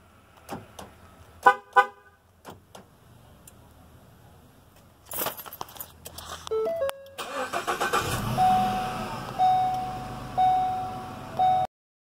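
Key fob buttons clicking, then the van's horn chirping twice as the aftermarket remote start on a 2015 Ford Transit is triggered. About seven seconds in the engine cranks and starts, and runs with a beep sounding about once a second.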